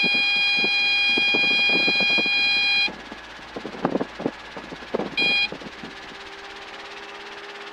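Robinson R22's low-rotor-RPM warning horn sounding a steady high tone for about three seconds, then a short blast again about five seconds in, over the helicopter's cabin noise. The horn warns that rotor RPM has dropped below its limit.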